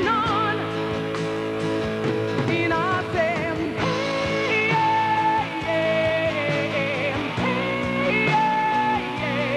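Rock song playing: a singer holds long notes with vibrato over a band.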